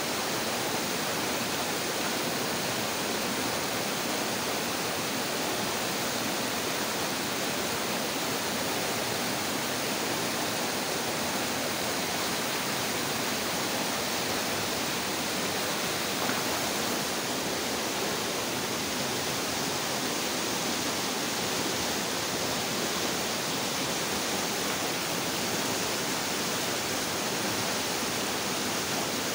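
Water running steadily among rocks in a small stream, a constant rushing.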